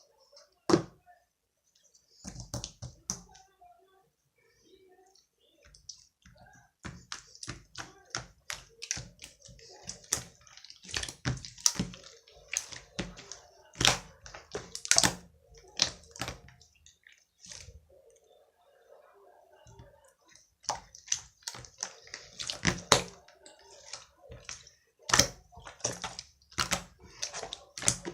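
Slime being squished and poked by hand: irregular sticky clicks, pops and squelches, sparse at first and then coming thick and fast, with a short lull past the middle.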